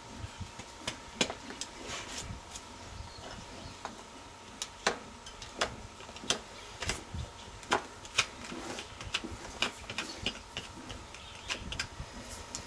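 Hoof knife paring a loose, flapping piece of shedding frog off a horse's hoof: irregular short scraping clicks, a few each second.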